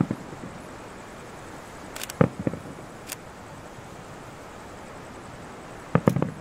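Aerial fireworks bursting at a distance. The sharp bangs and cracks come in clusters: one at the start, several about two seconds in, and another group near the end, over a steady hiss.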